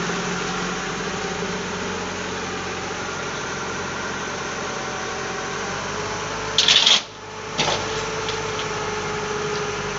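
Truck engine running steadily with the UNIC 340K truck-mounted crane working off it, a constant hum with several steady tones. About seven seconds in, a short, loud, sharp noise cuts off abruptly, followed by a click.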